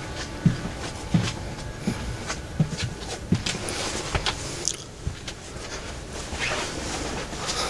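Footsteps on the aisle floor inside a coach, low thumps about every 0.7 s, mixed with small knocks and clicks of handling, over a steady background noise.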